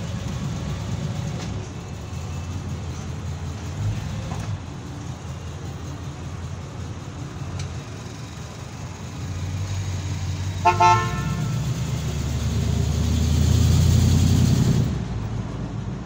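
1967 Chevrolet Caprice's engine running with a steady low rumble that swells louder near the end. A car horn gives one short toot partway through.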